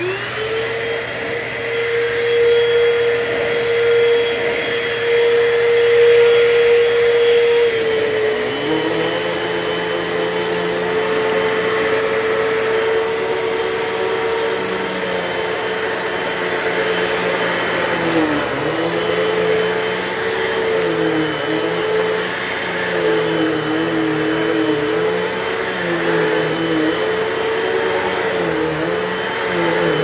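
Hoover Total Home Pet upright vacuum switched on and running with a steady whine while vacuuming cat litter from carpet. About eight seconds in the pitch drops a little and a lower hum joins; in the second half that hum dips and recovers again and again.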